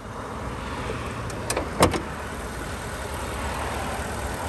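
The hood of a 2014 Ford F-150 being lifted open, with two sharp clicks from the hood catch about a second and a half in, the second one louder, over a steady low rumble.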